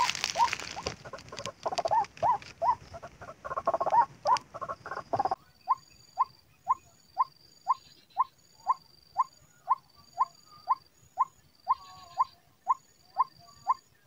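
White-breasted waterhen calls used as a lure: a short rising note repeated very evenly, about twice a second. Over the first five seconds, footsteps rustle through dry leaf litter; they stop abruptly.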